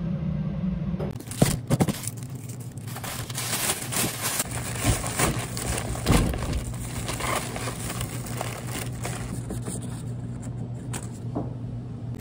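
Thin plastic carrier bag rustling and crinkling as hands handle it, with sharp crackles, over a steady low hum.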